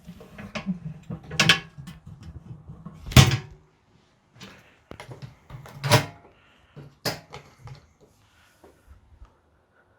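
Handling noise as items are moved and set down: a series of knocks and clunks, four of them louder, with softer rustling between them that dies away toward the end.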